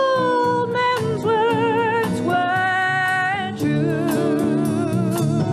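Live band playing a soft-rock song, with acoustic guitar, keyboard and a steady drum beat under a singer holding long notes with vibrato.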